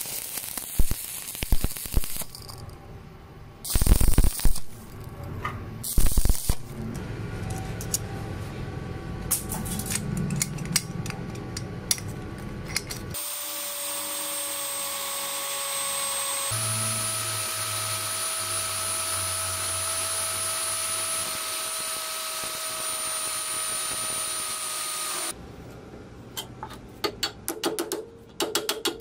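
Electric arc welding crackling on steel, with two louder bursts in the first several seconds. Then an electric drill runs steadily, boring a hole in steel, its pitch stepping up slightly partway through. Near the end, a quick run of sharp clicks.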